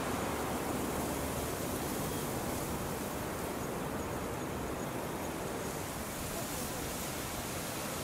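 Strong typhoon wind blowing across the microphone: a steady rushing noise with no distinct engine tone.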